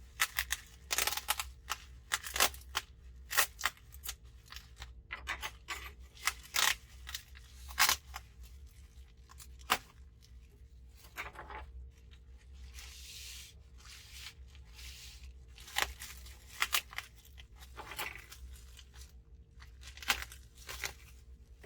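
Shipping packaging being unpacked by hand: irregular crinkling, rustling and tearing of plastic wrapping, with many short sharp crackles and a few longer rustles.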